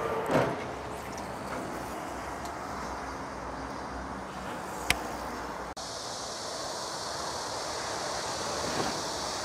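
Steady traffic noise from a nearby road, with a truck passing. A brief loud sound falls in pitch just after the start, and a sharp click comes about halfway through. About two-thirds of the way in, the noise changes to a steadier, brighter hiss.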